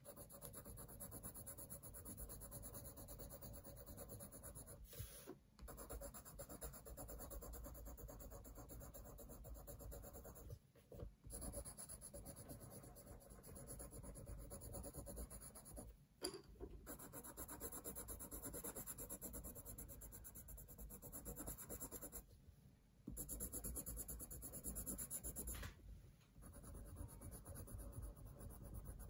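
Coloured pencil shading on sketchbook paper: a steady, fine scratching of quick strokes, broken by a few short pauses as the pencil lifts.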